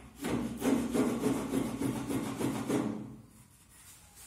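Spokeshave shaving a thin wooden piece held in a vise, in quick, repeated scraping strokes that stop about three seconds in.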